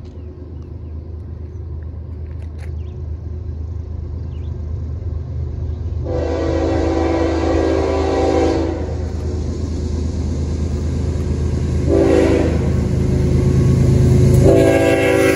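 CSX freight diesel locomotive approaching and growing steadily louder, its engine rumbling low beneath a multi-tone air horn chord: one long blast, a short blast, then another long blast starting near the end. This is the tail of the long-long-short-long signal sounded for a grade crossing.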